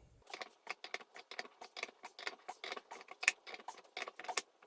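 Socket ratchet wrench clicking quickly and unevenly as a nut is cranked down, using the nut and gear to press a bearing onto the shaft.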